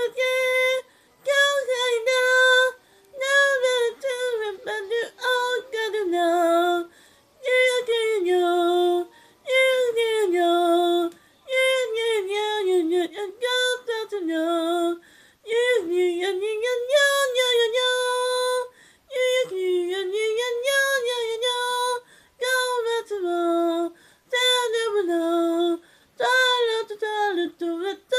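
A high female voice singing unaccompanied, in short melodic phrases with held notes and brief pauses between them.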